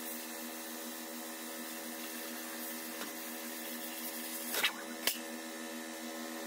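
PrimeWeld Cut60 plasma cutter rig running with a steady hiss over a low hum, with two sharp clanks about four and a half and five seconds in.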